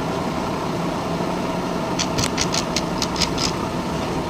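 Metal lathe running steadily through a facing cut, with a steady hum. About two seconds in comes a quick run of about eight sharp ticks over a second and a half.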